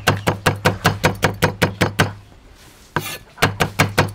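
Cleaver chopping red chillies on a wooden cutting board: quick, even knocks about six or seven a second, pausing for about a second midway before the chopping resumes.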